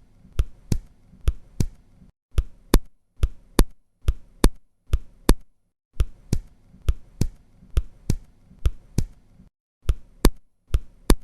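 Synthetic heart sounds in a steady lub-dub rhythm, about one beat a second, with the second sound of each pair louder than the first. This is an accentuated second heart sound over the pulmonary artery. The sequence pauses briefly a few times.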